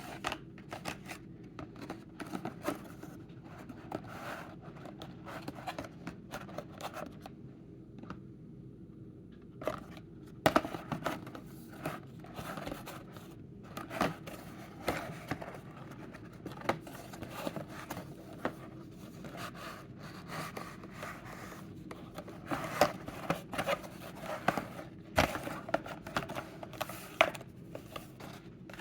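A cardboard case of packaged toy cars being opened and handled: a busy string of short sharp clicks, scrapes, cuts and crinkles of cardboard and plastic packaging, getting busier about a third of the way in and again near the end.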